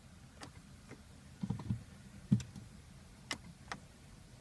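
Scattered clicks and a few soft knocks in a 2012 Kia Optima's cabin as the push-button start is pressed and the brake pedal pumped, with no starter cranking or engine firing: the car fails to start.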